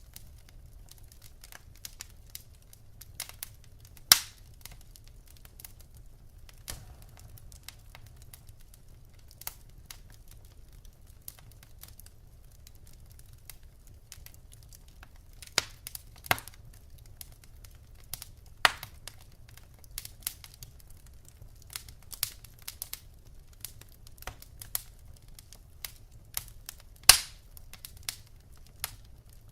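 Wood fire crackling in a fireplace: irregular sharp pops and snaps over a low steady rumble, with the loudest pops about four seconds in and near the end.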